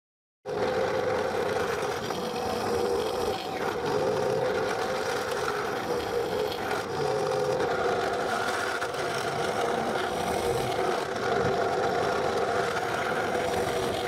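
Drill press running steadily while its 10 mm wood drill bit bores into an oak workpiece, starting about half a second in.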